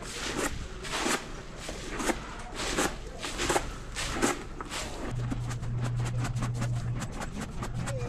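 Footsteps and powdered lime being flung onto a concrete barn aisle in regular strokes, roughly one every two-thirds of a second. A low steady hum comes in about five seconds in.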